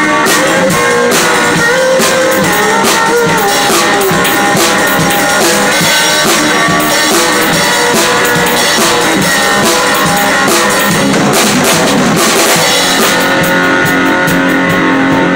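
Live band playing loud music, with a drum kit's drums and cymbals struck hard up front over pitched instruments. About 13 seconds in the drumming stops and a held note rings on.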